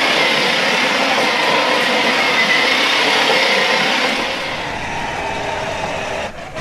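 Battery-powered ride-on toy tank driving on a hardwood floor: its electric drive motors and gearboxes whine and grind steadily. About four seconds in, this gives way to the quieter whir of an electric ride-on toy car with its plastic wheels rolling over paving.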